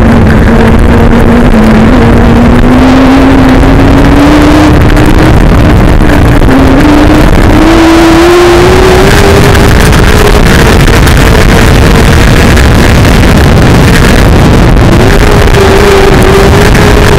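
Mini sprint race car engine heard from an onboard camera, so loud that the sound is distorted. The engine note climbs slowly as the car races, dips briefly twice and then rises again.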